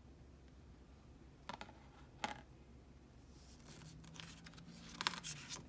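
Faint handling of oracle cards: two light taps, then a run of soft scraping and tapping from the card stock in the second half.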